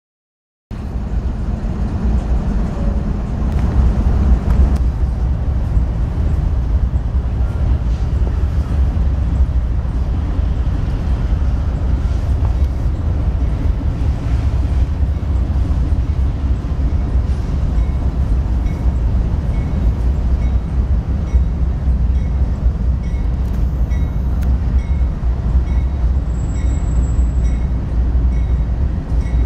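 Diesel-electric freight train led by BNSF GE C44-9W locomotives approaching and passing close by: a steady, loud low rumble of the engines with wheel and rail noise. The sound starts abruptly just under a second in.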